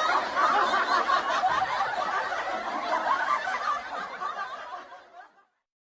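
Laughter, fading away about five seconds in.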